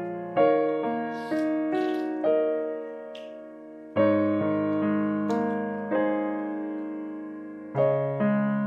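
Background solo piano music: slow notes and chords, each struck and left to fade before the next. A few faint short noises sit underneath.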